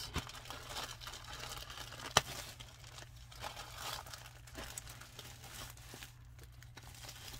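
Clear plastic bag crinkling as it is pulled open by hand around a yarn cake, with one sharp snap about two seconds in.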